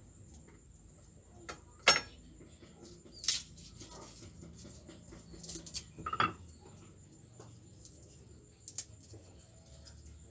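Scattered sharp clicks and taps of a small kitchen knife and shallot and garlic cloves being handled and set down during peeling by hand, the loudest about two seconds in, over a faint steady high hiss.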